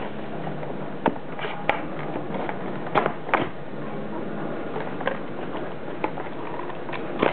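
Toy packaging being handled: scattered sharp clicks and taps of cardboard and plastic, five or so, as string ties holding a toy car in its box insert are pulled loose, over steady background noise.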